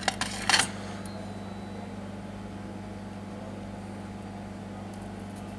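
A few sharp clicks and a short scrape in the first second as the BGA reballing stencil is handled on its metal holder, over a steady low electrical hum.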